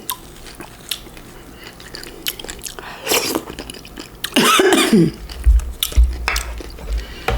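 Close-up chewing of fresh fruit, with many wet mouth clicks and smacks. A short vocal sound comes about four and a half seconds in, and a few dull low bumps follow shortly after.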